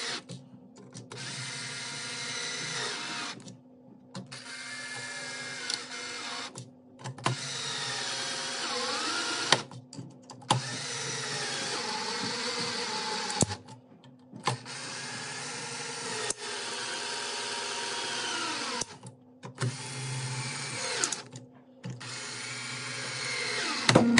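Cordless drill-driver driving screws into wall anchors one after another: about seven runs of a few seconds each, separated by short pauses. The motor's pitch drops within each run as the screw tightens and the anchor spreads, and there are a few sharp clicks.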